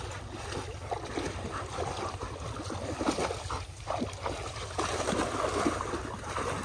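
Two dogs, a German shepherd and a Labrador, wading through a shallow irrigation canal, with irregular splashing and sloshing of water.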